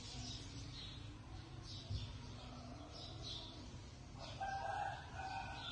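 Background rooster crowing about four seconds in, a pitched call in two parts, over small birds chirping repeatedly at a faint level.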